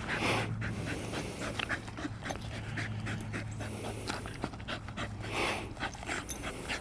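Cattle dog panting hard, out of breath from chasing a frisbee.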